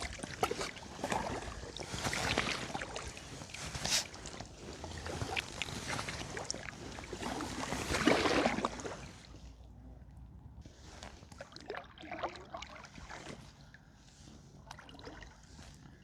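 Kayak paddle strokes splashing in calm lake water, the sound swelling about every two seconds. After about nine seconds the strokes stop and only faint drips and light splashes remain.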